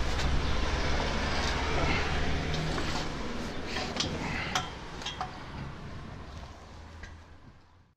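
Stihl chainsaw idling with a steady low hum, under scattered metallic clicks and clinks of climbing gear. The sound fades out toward the end and cuts off.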